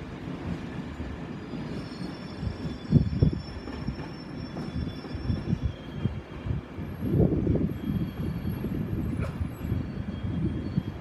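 InterCity 225 express train running through the station: a low rumble with irregular knocks from the wheels and bogies. Thin high-pitched squealing comes in about two seconds in and fades near the end.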